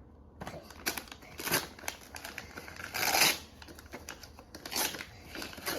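Christmas wrapping paper being torn and crumpled off a present in irregular bursts, the loudest about three seconds in.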